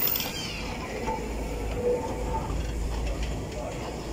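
Southern No. 24, an LSWR O2 class 0-4-4T steam tank locomotive, standing in steam. A short hiss comes at the start, over a low steady rumble.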